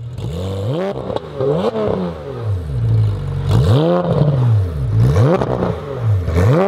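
An engine revved up and down over and over, its pitch climbing and dropping about eight times, with a few sharp clicks and crackles in between.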